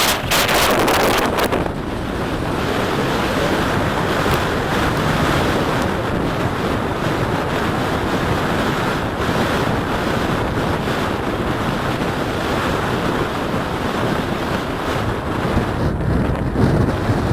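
Strong wind buffeting the microphone over the steady wash of waves, with harder gusts in the first second or so.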